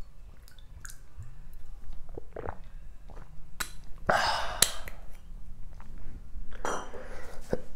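A man gulping water from a glass bottle, with quiet swallows, then a loud breathy exhale about four seconds in and another breath near the end.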